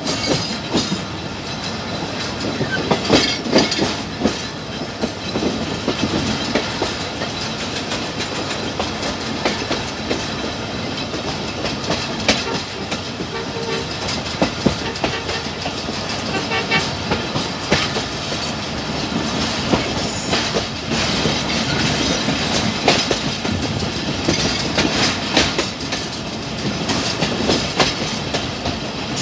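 Passenger train coaches rolling along the track, the wheels clattering over rail joints in a steady, uneven run of clicks and knocks over continuous rumble.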